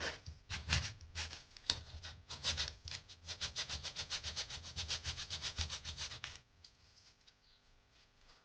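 Abrasive paper rubbed back and forth on a sneaker's sole, sanding off old glue so that new glue will hold. The strokes are uneven at first, then settle into a quick steady rhythm of about seven a second, and stop about six seconds in.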